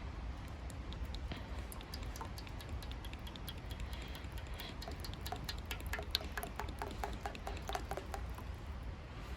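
Wood fire crackling, with scattered sharp pops and a quick run of denser pops in the middle, over a steady low rumble.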